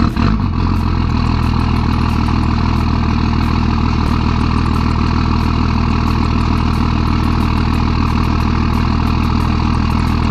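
Dodge Ram's Cummins diesel engine idling steadily through a large exhaust tip, heard from behind the truck.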